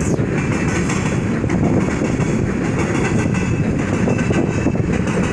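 Freight train of covered hopper cars rolling past, with a steady loud rumble of steel wheels on the rails.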